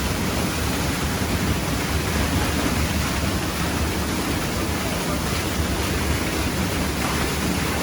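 Waterfall: a steady, even rush of falling water, heaviest in the low end.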